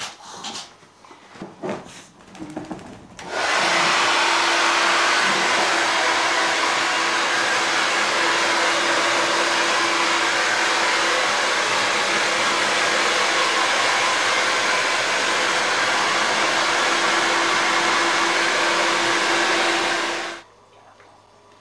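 Handheld hair dryer blowing steadily, drying a wet dog's coat after its bath, with a steady hum under the rush of air. It switches on about three seconds in and cuts off abruptly about a second before the end.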